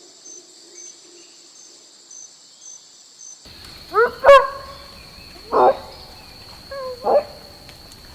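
A cricket chirps steadily in high-pitched pulses about twice a second. About three and a half seconds in it cuts off abruptly, and four short animal calls follow at intervals of about a second and a half, with a sharp click near the first of them.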